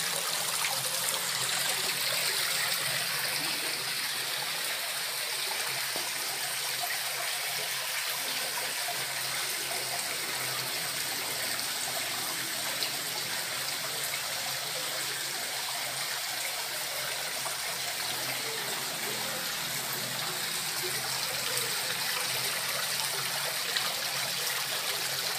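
Small garden waterfall: water trickling and splashing steadily over the stepped ledges of an artificial rock relief into a fish pond.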